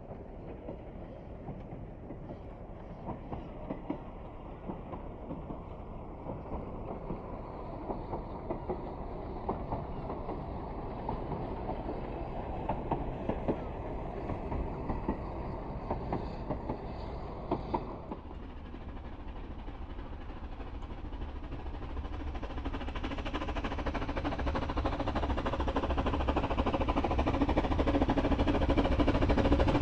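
Narrow-gauge steam train hauled by Welsh Pony, a George England 0-4-0 saddle tank, running at a distance with its wheels clicking over rail joints. About eighteen seconds in, the sound changes to the locomotive approaching with its train, growing steadily louder.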